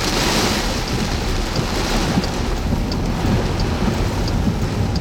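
Heavy rain pounding steadily on a moving car, loud and even, with faint light ticks about twice a second.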